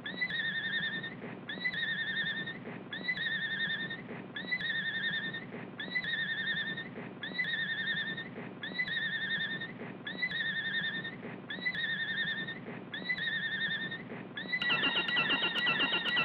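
Cartoon sound effect: a short, high whistling note repeated about every three quarters of a second, over a steady low soundtrack hum. Near the end it changes to a fast warbling trill with sharp clicks.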